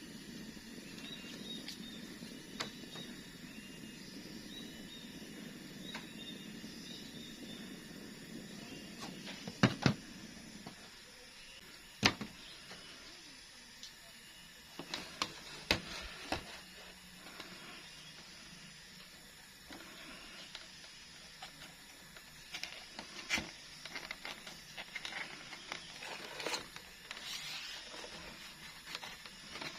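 A steady low hiss for about the first ten seconds, then a series of scattered sharp clicks and knocks, like tools or fittings being handled and set down.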